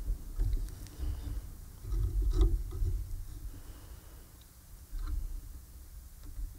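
Needle and thread being worked through needlepoint canvas by hand: low bumps of the hand handling the canvas, with light scratchy ticks as the thread is drawn through the mesh.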